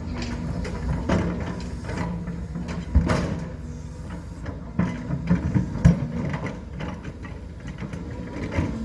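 Diesel engine of a Cat 320 excavator running steadily while it works, with scattered metallic clanks and knocks, the loudest about three seconds in and a cluster around five to six seconds.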